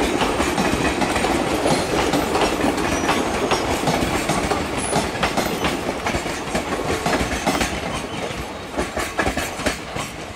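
Passenger train coaches rolling away on the track, their wheels clattering in a quick, irregular clickety-clack over rail joints under a steady rumble. The sound fades steadily as the end of the train draws away.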